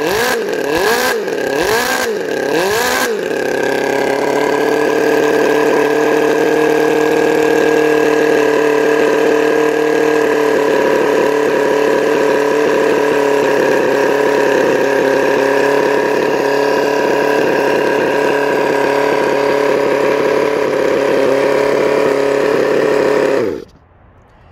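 Enjomor 36cc four-cylinder, dual-overhead-cam model engine running; it is blipped up and down several times in the first few seconds, then settles to a steady speed and cuts off suddenly about a second before the end.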